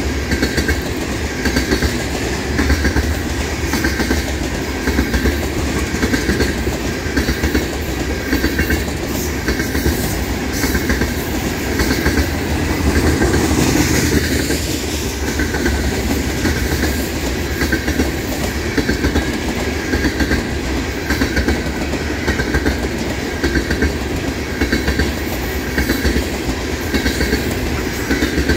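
Tank cars of a CSX freight train rolling past: a steady rumble with a rhythmic clickety-clack of wheels over the rail joints.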